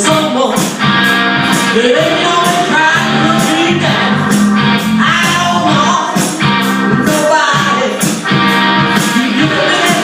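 Band music with a singer over a steady drum beat.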